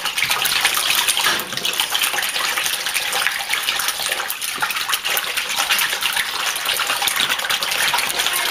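A hand swishing and splashing through water in a plastic bowl, mixing in sugar and eggs to dissolve them: a steady wet sloshing full of small splashes.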